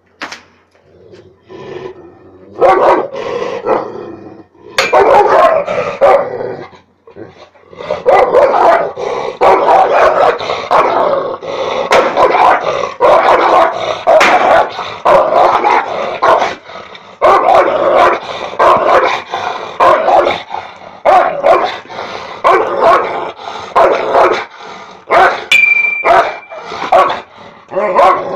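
Caucasian Shepherd Dog barking aggressively, with growling between barks: a few barks in the first seconds, then a long, almost unbroken run of barks from about eight seconds in.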